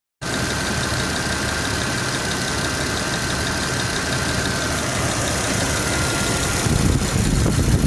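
Jeep Grand Cherokee WJ's AMC 242 4.0-litre straight-six idling with a quick, even ticking over the engine noise and a steady whine. The low rumble grows louder about seven seconds in.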